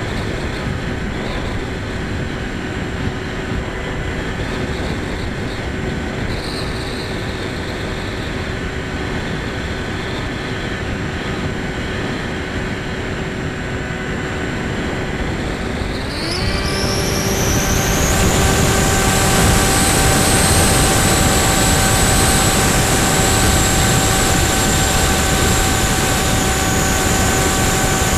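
Electric motor and propeller of an EPP foam FPV plane, heard from the onboard camera over a steady rush of air. A little past halfway the throttle opens: the motor's whine climbs in pitch and holds higher and louder.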